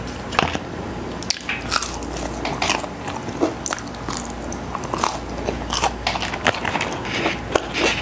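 Close-miked eating of a McDonald's Chicken McNugget: biting into the fried coating and chewing, heard as an irregular run of short, sharp crunches.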